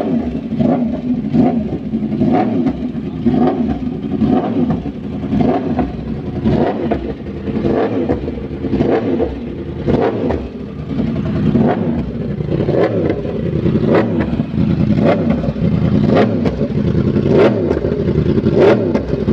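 Yamaha R1M's crossplane inline-four revved hard in repeated short throttle blips, about one a second, through an aftermarket exhaust. Between the blips the exhaust pops and crackles as it backfires on the overrun.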